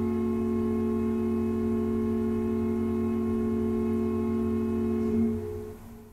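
Choir holding a final chord. It swells briefly about five seconds in, then is released and dies away.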